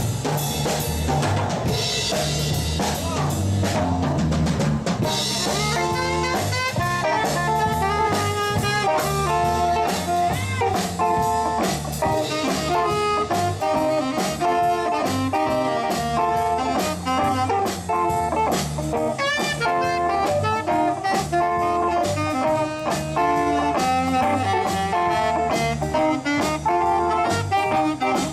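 Live blues-rock band playing an instrumental passage: a drum kit with cymbals leads in, then a lead instrument carries a melody of held notes over bass, guitar and drums.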